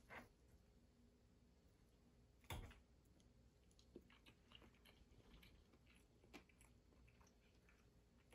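Faint chewing of a forkful of hash browns and eggs, with small clicks of a fork against the plate and one louder clink about two and a half seconds in.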